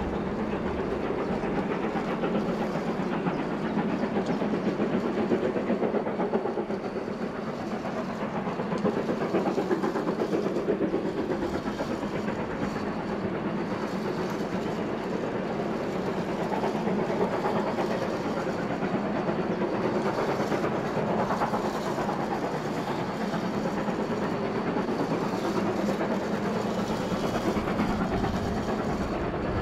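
Recorded sound effect of a steam train running steadily, its wheels clattering on the rails.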